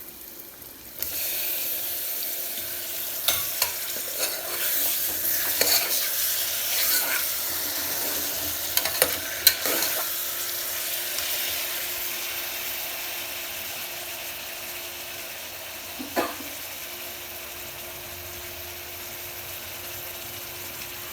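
Raw mutton pieces sizzling as they hit hot oil and fried onions in a pressure cooker, with a spatula clicking and scraping as they are stirred. The sizzle starts suddenly about a second in and slowly eases off.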